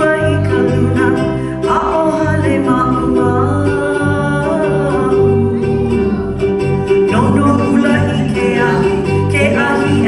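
Live Hawaiian hula music: a voice singing over strummed guitar, with a steady, regular bass beat underneath.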